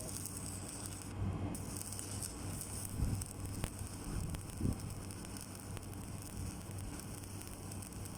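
Electric arc welding: the arc crackling and hissing steadily, with a brief break about a second in before it picks up again.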